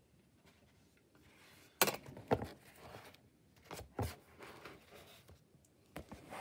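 Handling noise from a paperback book being moved and set back in front of the microphone: a few sharp knocks and rubs starting about two seconds in, with more near four and six seconds.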